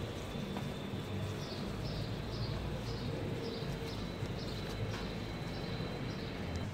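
A small bird chirping repeatedly in short, high, falling chirps, over a steady low rumble of outdoor background noise.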